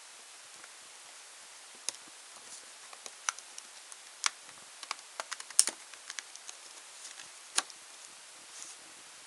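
Scattered sharp clicks and taps of hard plastic as a smartphone's plastic body and back cover are handled, with a few light rustles, over a steady faint hiss.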